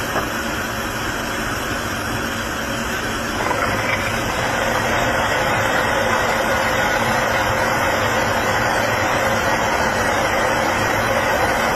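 CNC machining centre running a thread-tapping operation: a steady mechanical running noise with a low hum, stepping up in loudness about three and a half seconds in and holding level after.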